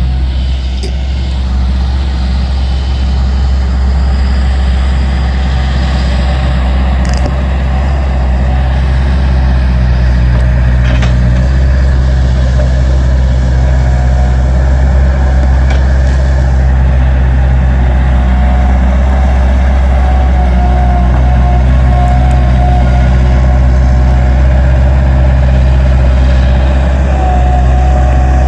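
Diesel engines of two working skid steer loaders, a Bobcat 763 and a New Holland LS180, running steadily: a loud low drone with a higher tone that comes and goes, stronger in the second half.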